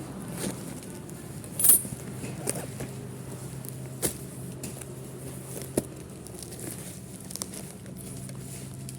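Unboxing handling sounds: a few sharp clicks and light rattles of packaging and a plastic device being handled, the loudest about two seconds in, over a steady low hum.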